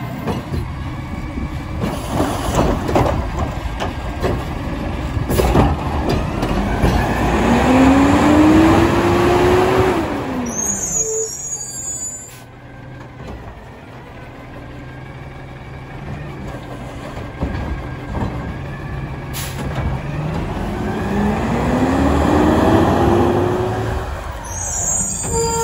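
Natural-gas Mack LR front-load garbage truck pulling away: the engine rises in pitch as it accelerates, then drops off, with a short air-brake hiss. It runs quieter for a while, then rises in pitch again and ends with another air-brake hiss as it stops at the next cart. There are a few knocks in the first seconds.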